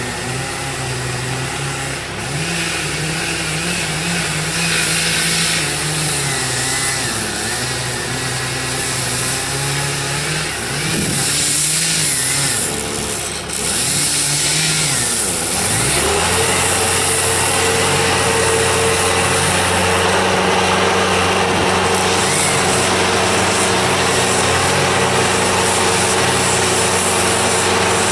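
An engine running, its pitch rising and falling again and again as the load or throttle changes. About sixteen seconds in, it switches abruptly to a steady drone with an even pitch.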